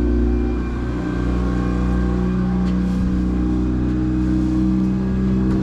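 Outboard boat motor running steadily, its pitch shifting slightly now and then.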